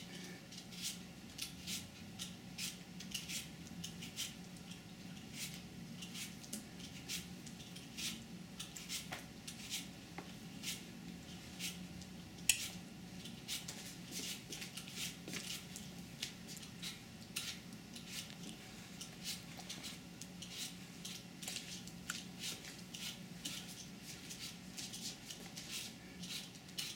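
A toddler eating grapes by hand: soft, irregular clicks and smacks of chewing and of fingers picking at a small bowl, one to three a second, over a low steady hum.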